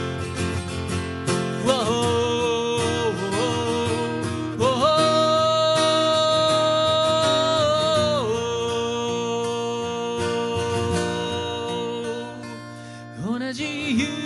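A man singing to his own strummed acoustic guitar, holding long notes with a waver at their ends; one note is held for about three seconds near the middle.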